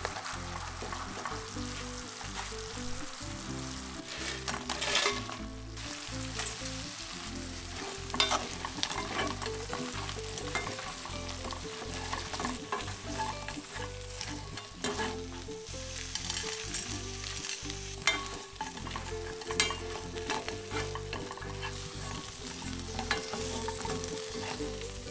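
Sweet-spicy chili sauce sizzling and bubbling in a nonstick frying pan while it is stirred, then fried chicken pieces being tossed through the sticky sauce. A spatula and wooden chopsticks scrape and click against the pan now and then.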